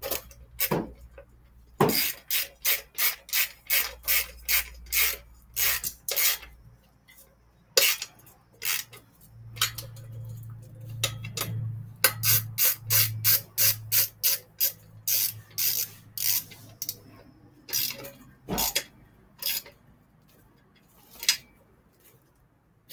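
A wrench tightening the front wheel's axle nuts on a BMX bike: runs of short raspy strokes, about three a second, with pauses between the runs.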